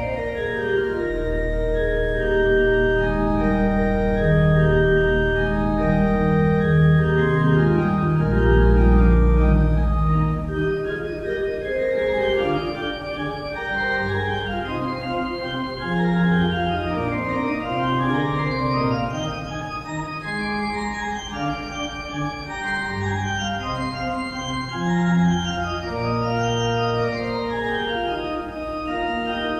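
Organ music playing as the prelude to a church service: held chords over deep sustained bass notes for about the first ten seconds, then a moving melody over changing chords.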